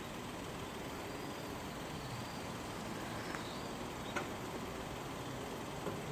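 Steady rumble of distant road traffic, with a few faint, thin, high bird calls and two short ticks in the middle.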